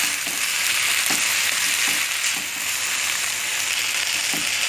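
Chicken pieces, onion and capsicum sizzling in a frying pan while a spatula stirs them, with a few soft scrapes and knocks of the spatula in the pan.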